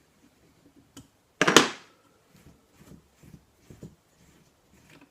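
Handling knocks from a shotgun's stock and tools during disassembly: one loud knock with a brief ring about a second and a half in, followed by several softer taps.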